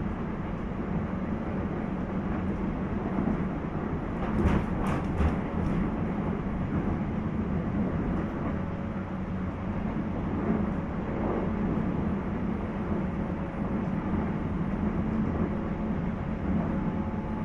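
Running sound inside a 719 series electric train car, KuMoHa 719-1, under way: a steady rumble of wheels and motors. A quick run of four or five clacks comes about four to six seconds in.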